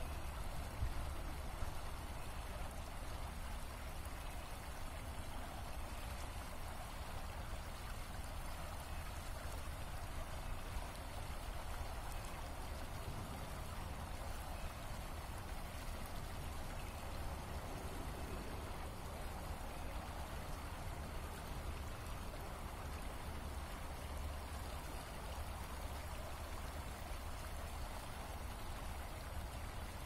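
Small river running steadily over its bed, an even, unbroken rush of flowing water.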